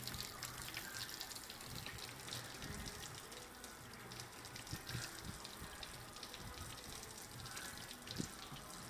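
Washer fluid running and dripping out of the cracked, disconnected washer fluid reservoir, with small plastic clicks and taps from electrical connectors being handled.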